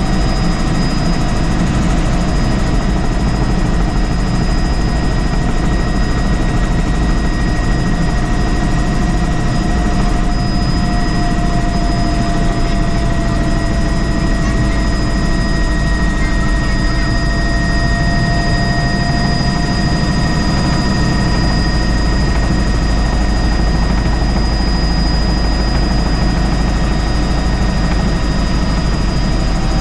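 Helicopter in flight, its rotor and turbine engine running steadily: a continuous high whine over a low rumble.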